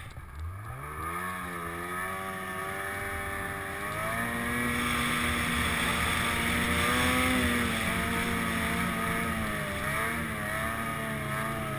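Snowmobile engine revving up from low in the first second or so, then running on at a steady, slightly wavering pitch as the sled rides across the snow. A hiss under the engine gets louder about four seconds in.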